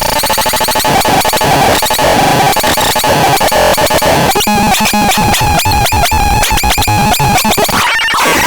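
Synthesizer making harsh, chaotic noise: a held tone under a dense, rapidly stuttering buzz of clicks, with a short dropout near the end.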